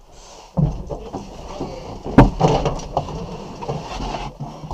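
Bumps and rustling of a driver climbing into a rally truck's bucket seat inside the cab, with a sharp knock about two seconds in.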